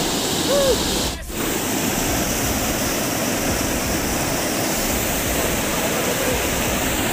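Steady rushing water, with a brief dip in level about a second in.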